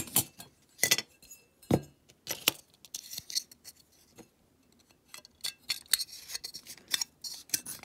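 Small diecast metal and plastic model-car parts being handled and set down on a hard bench: scattered sharp clicks and light clinks, with one louder knock just under two seconds in.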